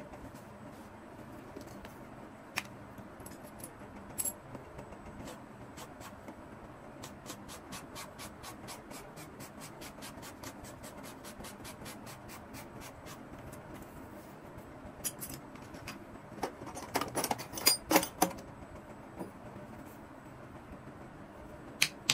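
Hand work on the bottom of a leather boot on its last: light scratching and a long run of small even clicks, then a quick cluster of sharper knocks and taps about three-quarters of the way through, with two more near the end, over a steady low background noise.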